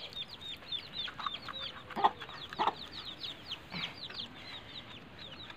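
Chicks cheeping steadily, a quick string of short, high, falling peeps, four or five a second, with a few lower clucks from the mother hen.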